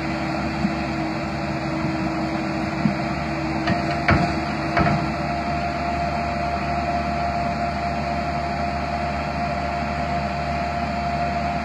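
Amphibious tractor's engine running steadily, with two sharp knocks about four and five seconds in.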